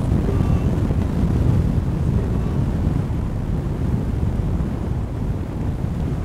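Wind buffeting the camera microphone of a scooter rider travelling at about 40 mph: a loud, steady low rumble.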